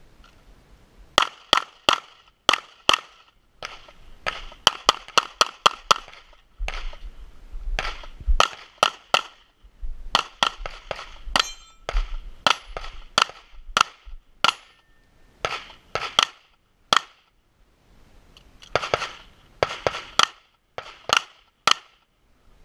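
A pistol fired in quick strings of two to several shots, with short pauses between strings, through a practical-shooting stage.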